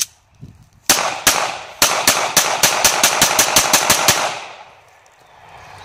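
Beretta PX4 Storm .40 S&W pistol fired rapidly: two shots about a second in, then a fast string of more than a dozen shots over about two seconds, the echo fading after the last.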